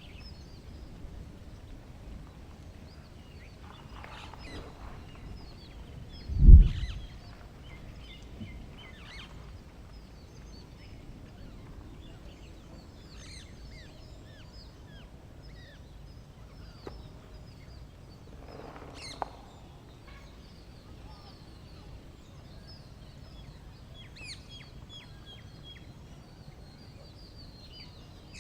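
Birds chirping and calling at a farm, with a few fuller calls about four and nineteen seconds in. A single low thud about six and a half seconds in is the loudest sound.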